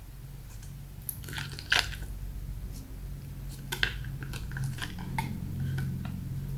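Slime being squished and kneaded by hand, giving irregular wet clicks and pops, the loudest a little under two seconds in. A low steady hum runs underneath.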